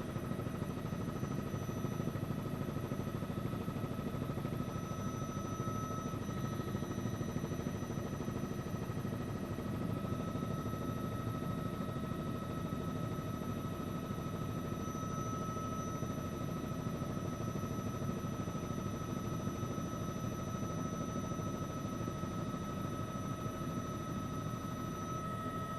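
News helicopter in steady flight, heard from inside the cabin: an even engine and rotor drone with a thin high whine that holds steady.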